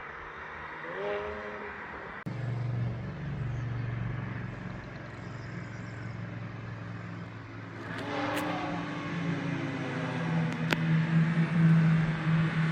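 BMW E92 335i's N54 twin-turbo inline-six exhaust running at low revs while the car rolls, drawing louder from about eight seconds in as it pulls harder. The sound jumps abruptly about two seconds in.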